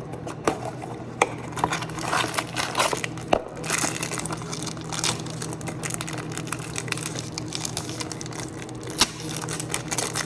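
Packaging of new bearings being crinkled and torn open by hand: dense, irregular crinkling and crackling over a steady low hum.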